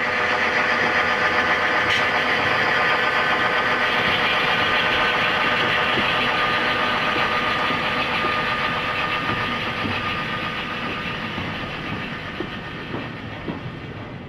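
Diesel locomotive engine running under load as a freight train passes, swelling up in the first second and then slowly fading away as the train moves off.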